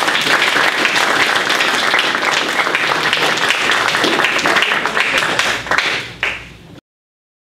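Audience applauding, a dense patter of many hands clapping that thins out about six seconds in and then cuts off suddenly to silence.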